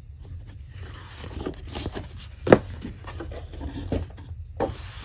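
Sheets of patterned scrapbook paper being handled and shifted against each other, with soft rustling and small clicks and one sharp tap about halfway through.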